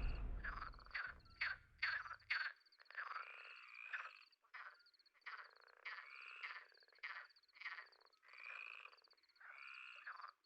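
Frogs croaking in short, irregular calls, about one or two a second, over a faint, steady, high-pitched pulsing trill.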